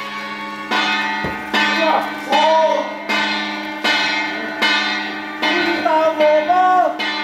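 A bell struck at a steady pace, about once every 0.8 seconds, each stroke ringing on over a steady hum. A man's voice calls out between strokes.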